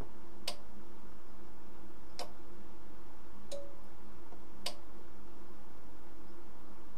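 Relays inside a Sencore LC102 capacitor-inductor analyzer clicking as they switch during a leakage test, four sharp clicks about one to two seconds apart over a steady low hum. Both relays are switching; the repairer suspects a bad contact in the one that discharges the capacitor under test.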